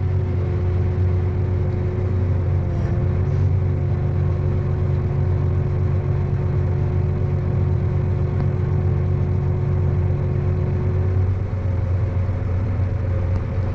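A peanut harvesting machine's engine running steadily, heard from inside the cab, with a low drone and a steady whine that shifts pitch about eleven seconds in.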